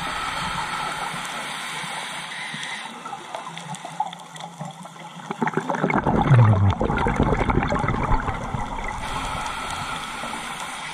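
Scuba diver breathing through a regulator underwater: a steady hiss of inhaling at the start and again near the end, with a loud, low gurgle of exhaled bubbles in the middle.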